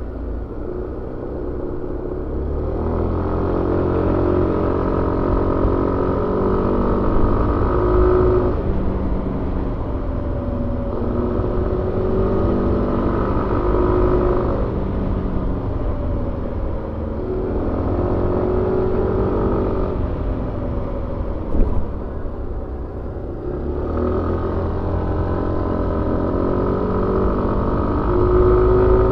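Suzuki Avenis 125 scooter's single-cylinder engine heard on board while riding. The throttle opens four times: each time the revs climb and then hold, and in between they drop back to a lower hum. A short knock comes about two-thirds of the way through.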